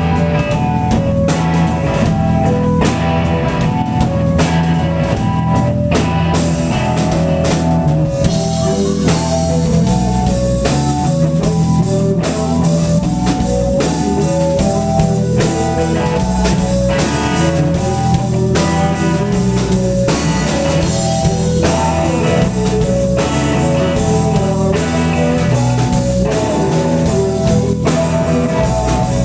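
A live rock band playing a song: electric guitars, bass guitar and drum kit, steady and loud, with drum hits keeping a regular beat.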